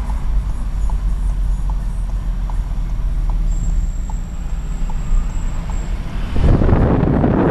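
Volkswagen Golf 1.4 TSI moving slowly, heard from inside the cabin: a steady low rumble with a faint tick repeating a little more than once a second. About six seconds in, a much louder rush of wind and road noise takes over.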